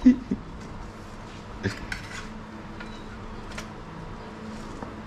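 Metal spoon clinking and scraping against a metal pan, a handful of sharp clinks spaced about a second apart with the loudest right at the start, as cooked tilapia is picked through to remove the bones. A faint steady hum runs underneath.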